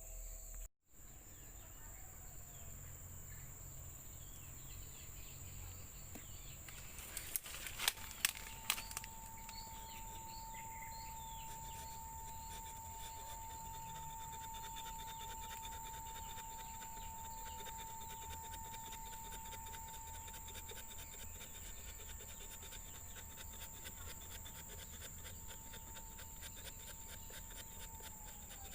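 Rainforest insects: a constant high-pitched drone, joined about eight seconds in by a second insect's steady single-pitched whine that runs almost to the end, over fine rapid ticking. A few sharp clicks come between about seven and nine seconds in.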